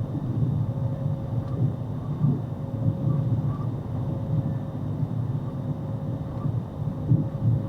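Steady low rumble of a moving vehicle's engine and road noise, with a faint steady whine above it.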